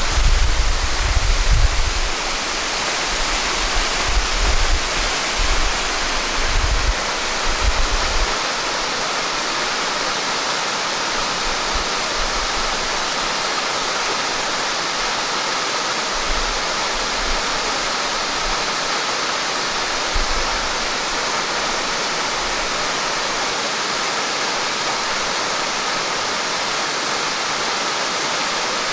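Waterfall: a steady rush of water falling onto rock. Low rumbling buffets of wind on the microphone come through during roughly the first eight seconds.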